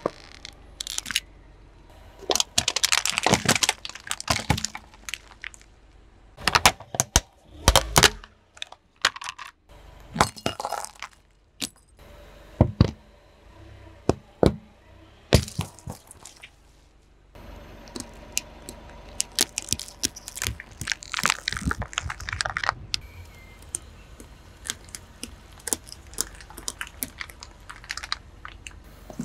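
A car tyre rolling over and crushing objects: a string of sharp cracks, snaps and crunches as a toy car breaks apart, then a tin being flattened and plastic jelly cups bursting.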